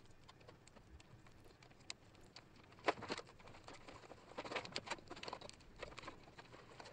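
Faint rustling and clicking of an engine wiring harness being handled: wires, plastic connectors and tubing knocking together. There are a couple of sharper clicks about three seconds in and a run of small ticks a little later.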